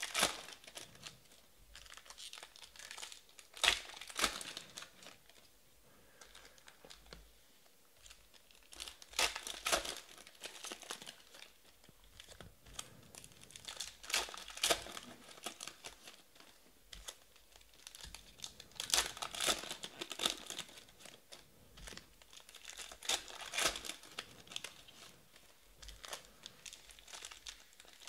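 Foil trading-card pack wrappers being torn open and crinkled by hand, in short bursts every few seconds, with quieter card handling in between.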